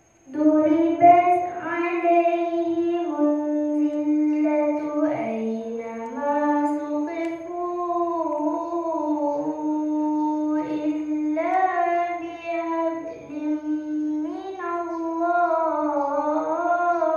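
A young girl's voice reciting the Quran in tarannum style, the melodic chanted recitation: long held notes with ornamented turns of pitch, broken by short breaths. It begins about half a second in.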